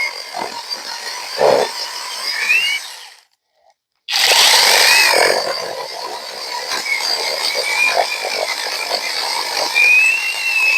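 Battery chainsaw cutting through a log, its electric motor whine wavering in pitch as it bogs under load. It cuts out about three seconds in and starts again a second later.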